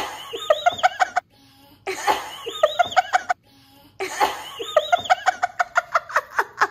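Young child laughing in three bouts, each a quick run of high-pitched 'ha' pulses after a breathy start; the third bout runs longest.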